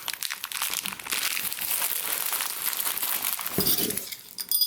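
Plastic parts bag crinkling and rustling as it is handled and opened, with a brief light metallic clink of small hardware near the end.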